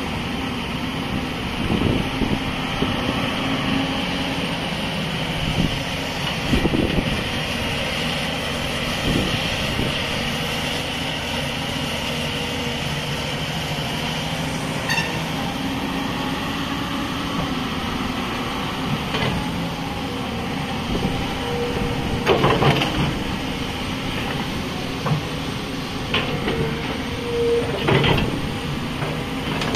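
Hyundai HX360 crawler excavator's diesel engine and hydraulics working steadily as it digs into a dirt pile and swings. Several clanks and knocks from the bucket and boom come through it, the loudest about two-thirds of the way in.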